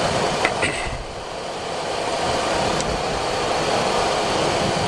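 Steady cockpit noise of a Boeing 737-400 starting to taxi: its CFM56 engines running at low thrust together with the rush of cabin air. The noise dips slightly about a second in, then builds back up gradually, with a couple of faint clicks just before the dip.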